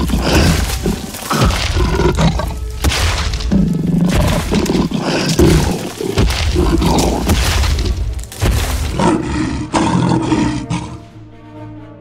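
Cartoon dinosaur roar sound effects, loud and repeated, over dramatic background music. Near the end the roars stop and the music carries on with held notes.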